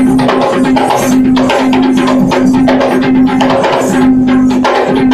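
Fast, dense drumming accompanying a Kandyan dance, with a steady droning note running underneath that breaks off briefly every second or so.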